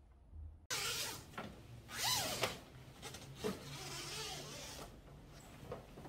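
Rustling of fabric curtains being moved, with light handling noises and a short squeak about two seconds in. The sound cuts in suddenly a little under a second in.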